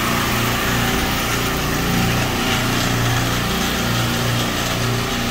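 A rack of Bitzer semi-hermetic refrigeration compressors running together, a steady machine-room hum. A low drone in it swells and fades slowly, about every second or so.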